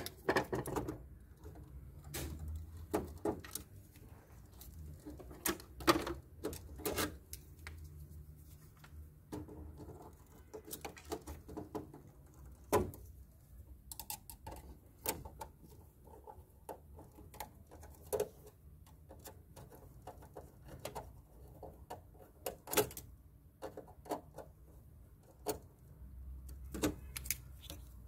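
Scattered clicks, taps and scrapes of a screwdriver and pliers on a control panel's distribution busbar terminal, as its screw is loosened and a phase wire is fitted and tightened.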